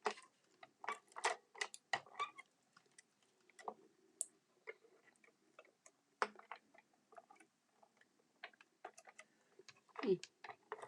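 Irregular light clicks and taps of paper card pieces being handled and pressed down onto a card.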